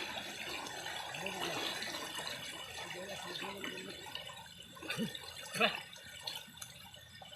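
Water gurgling and trickling, with two louder plops about five seconds in.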